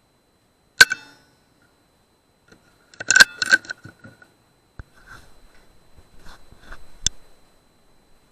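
Single shot from a custom-tuned .177 Air Arms S200 PCP air rifle: a sharp crack about a second in. Then comes a cluster of metallic clicks and rattles around three seconds in, with fainter scattered clicks after it.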